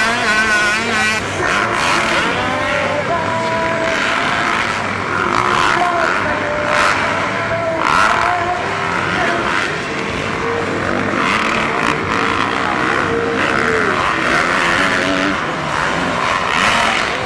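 Several motocross bikes' engines revving hard and overlapping, their pitch rising and falling as the riders open and shut the throttle over the jumps.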